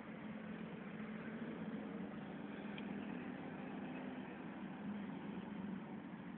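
Steady hum of road traffic, a low drone with no distinct events.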